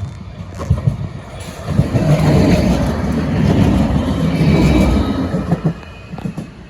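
Rail vehicle passing close by over a level crossing: a rumble that builds about a second and a half in, holds for about four seconds and fades, with a faint high wheel squeal as it dies away.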